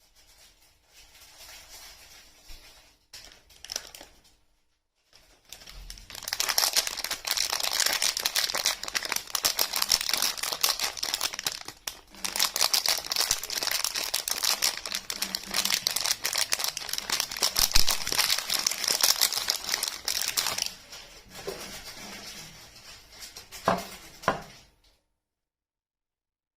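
Soap wrapping being crinkled and torn open by hand. Soft handling sounds at first, then a long stretch of loud, dense crinkling with a short pause midway. It dies down to quieter rustling and stops shortly before the end.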